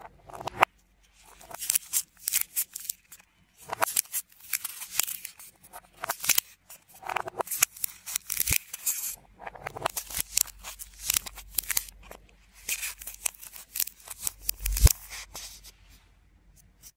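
Scissors cutting and cracking through a hardened clay donut: many short, crisp snaps and crunches of the dry clay breaking, with brief pauses. There is one sharper, louder crack with a low knock near the end.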